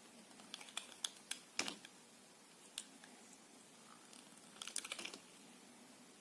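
Knife cutting soft soap: crisp clicks and crackles in two short clusters, one in the first two seconds and another about four and a half seconds in.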